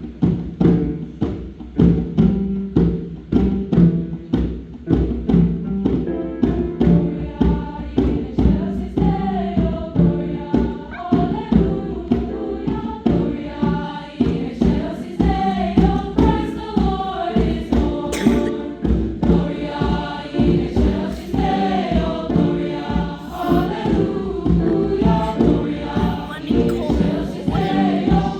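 A choir singing a holiday song over a steady rhythmic accompaniment. The beat plays alone at first, and the voices come in about six seconds in.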